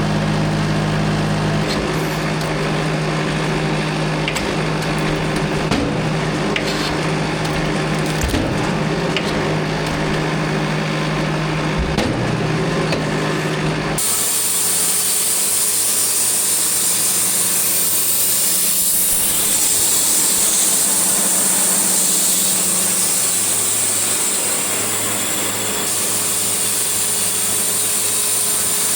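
Engine-powered saw running steadily and cutting wood. About halfway the sound changes abruptly: the engine hum drops back and a hissier cutting noise takes over.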